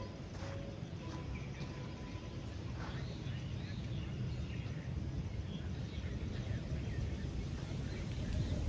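Open-air ambience: a steady low rumble with faint, scattered bird chirps.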